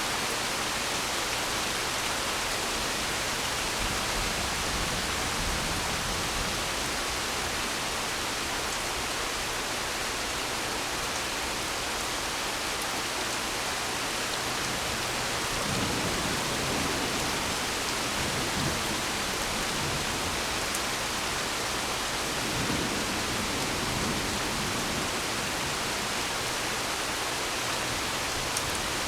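Steady, heavy rain hissing throughout, with a few low swells of rumble about four, sixteen and twenty-three seconds in, typical of distant thunder.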